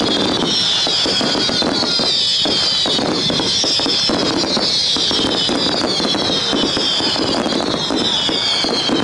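Fireworks crackling densely, many small reports in quick succession, over a high hiss that falls in pitch over and over.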